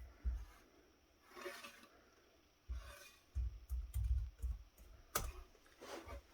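Typing on a computer keyboard: irregular key clicks and dull key knocks, bunched a little under three seconds in, with one sharper click about five seconds in.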